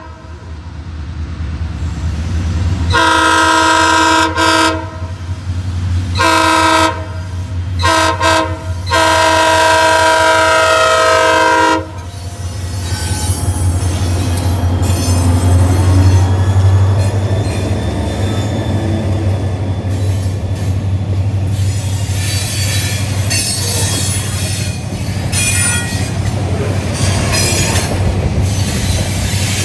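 A diesel freight locomotive's air horn blowing several blasts, two of them long, the last one stopping about twelve seconds in. The locomotives then pass close with a heavy engine rumble, followed by covered hopper cars rolling by with wheels clattering and squealing on the rails.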